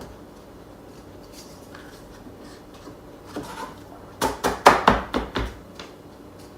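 Hard display-case panels being handled and fitted together: a quiet stretch with faint handling, then a quick cluster of sharp clacks and knocks about four seconds in, with a couple of lighter clicks after.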